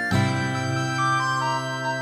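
Background music: sustained keyboard chords with a melody moving above them.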